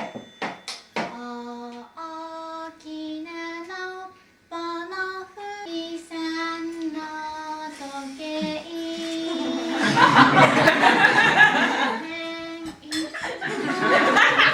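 A high voice sings a simple tune note by note, each note held briefly before stepping to the next. About ten seconds in a loud, noisy burst lasting around two seconds covers it, and another noisy stretch comes near the end.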